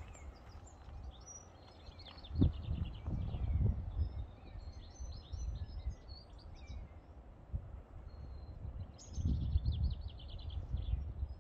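Small birds singing and chirping, with a quick trilled phrase about three seconds in and again near the end, over low gusts of wind buffeting the microphone.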